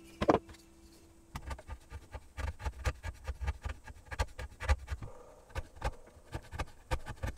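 Hand chisel paring the rounded knuckle of a wooden hinge: a quick series of short, crisp cuts and taps, about three or four a second, after one louder knock near the start. It is the fine trimming that lets the hinge turn smoothly.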